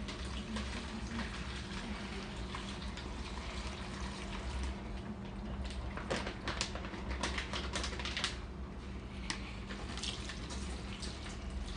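Thick plastic curing bag crinkling and crackling in quick irregular clicks as it is handled and brine is poured in over the brisket, with liquid splashing, over a steady low hum.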